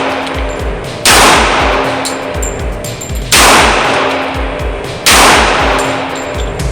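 Three shots from a .45 ACP 1911 pistol, a little under two seconds apart, each ringing off over a second or so. Background music with a pulsing low beat runs underneath.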